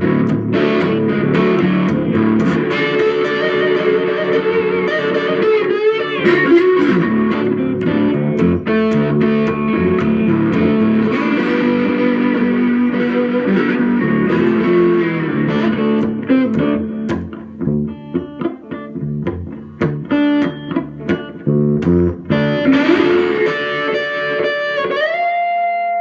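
Electric guitar played slide style with a big bottle as the slide: held notes that glide in pitch. About two thirds through, the playing turns into short, separated notes, and near the end the slide runs upward in pitch.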